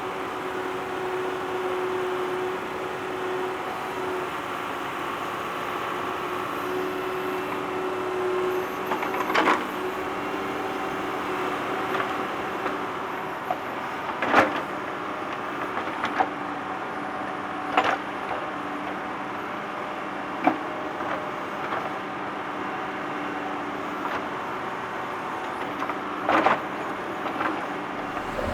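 Tractor engine running steadily while digging, with about six sharp knocks and clanks from the digging work scattered through.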